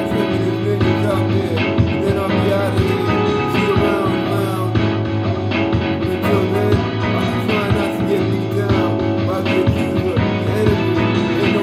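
Music with guitar, running continuously.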